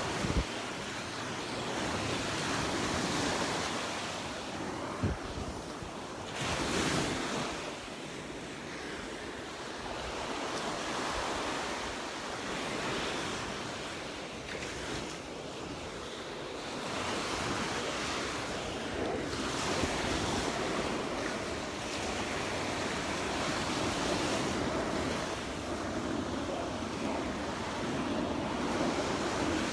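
Gulf of Mexico surf breaking on a sandy beach, swelling and easing every few seconds, with wind buffeting the microphone.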